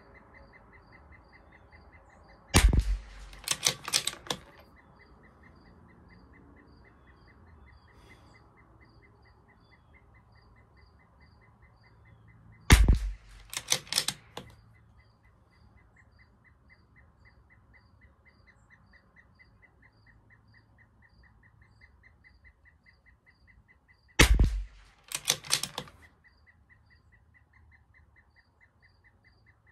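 Three shots from a Bergara B14R .22 LR bolt-action rifle, about ten seconds apart, each followed by a quick run of clicks as the bolt is cycled. Behind them a bird calls with a rapid, steady, repeating chirp.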